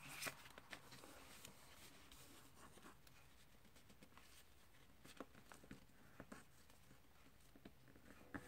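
Faint, scattered crinkles and taps of paper being folded and creased by hand, over near-silent room tone.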